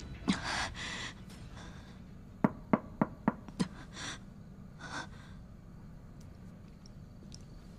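A woman gasps sharply, then five quick knocks on a wooden door, evenly spaced, followed by two more short sharp breaths.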